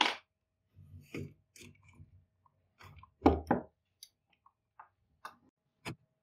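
Handling noises of a power drill and its steel clamp bracket being taken off a drill-press column: a sharp click, then a string of knocks and clunks, the heaviest about three seconds in, followed by a few light ticks and taps.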